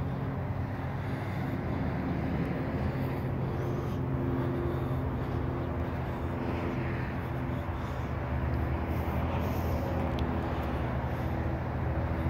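A truck engine idling steadily: a low, even hum with a few constant tones and no change in speed.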